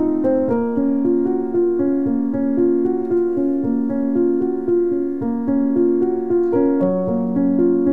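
Background piano music: a steady run of sustained notes, changing pitch about every half second.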